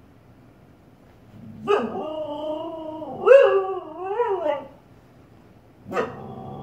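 Husky barking and howling at her own reflection: a sharp bark about two seconds in draws out into a wavering, howl-like call lasting about three seconds. Another bark starts near the end.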